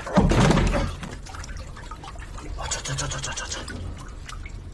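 Water splashing, pouring and trickling, with the loudest splash in the first second.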